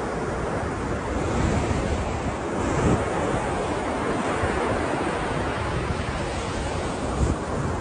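Ocean surf washing continuously, with wind buffeting the microphone and a low thump a little before the end.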